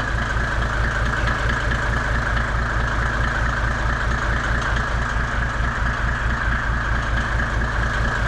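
Truck engine idling steadily with an even, low pulsing.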